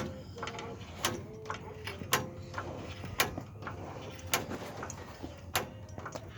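Hydraulic floor jack being pumped by its handle to lift a pickup truck, a sharp metallic click with each stroke about once a second.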